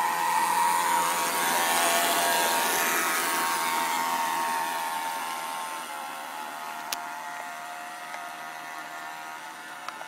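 Radio-controlled boat's brushed electric motor and propeller whining at speed, loudest as the boat passes close and then fading as it runs away across the pond. A single sharp click about seven seconds in.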